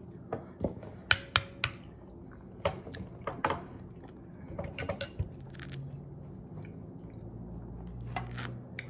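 Metal spoon clinking and scraping against a ceramic bowl of oatmeal, with three quick clinks about a second in and a few more scattered through, between quiet chewing.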